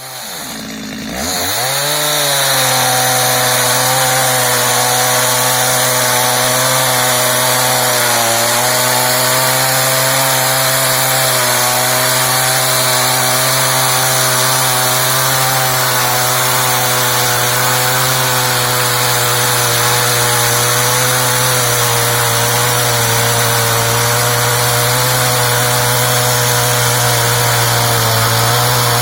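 Stihl MS 250 two-stroke chainsaw revving up over the first two seconds, then running at a steady high speed while cutting through wood, with a brief dip in pitch about eight seconds in.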